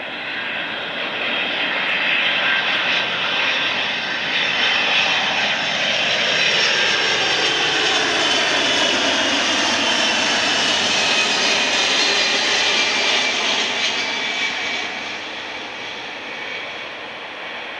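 Boeing 767 landing with its Pratt & Whitney PW4000 turbofans at low approach power as it passes low overhead. A whining jet rush builds, then its tones slide down in pitch as the airliner goes by, and it fades away toward the end.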